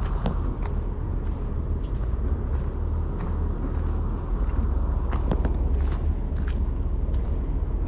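A heavy diesel engine running with a steady deep drone, with a few sharp knocks or clanks on top.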